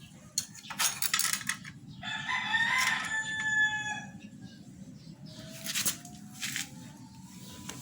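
A rooster crows once, about two seconds in. Short scraping or rattling noises come before and after it.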